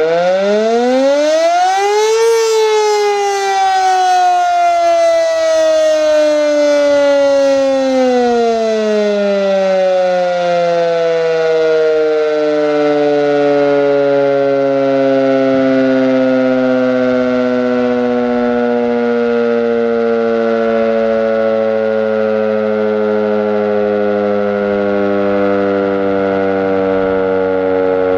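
Sentry 3V8 electromechanical outdoor warning siren sounding a short blast: its pitch finishes climbing to a peak about two seconds in, then falls in a long, slowly descending wail as the siren winds down.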